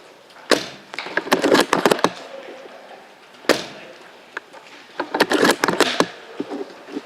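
Bolt-action spring airsoft sniper rifle fired twice, each sharp crack followed by a quick run of clicks as the bolt is worked to chamber the next BB.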